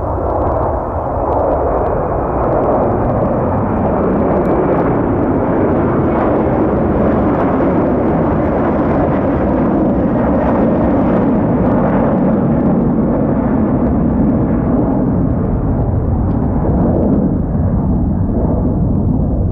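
Jet airliner engine noise, loud and steady, swelling over the first couple of seconds and then holding.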